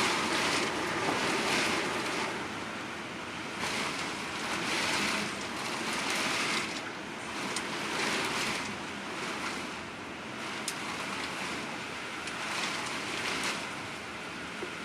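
Storm wind and heavy rain: a steady rushing that swells and eases in gusts every second or two, with a few sharp ticks partway through.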